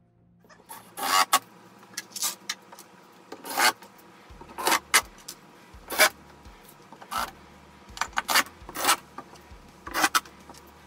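Cordless impact driver driving screws into a plywood panel in repeated short bursts, about a dozen spread irregularly through the stretch.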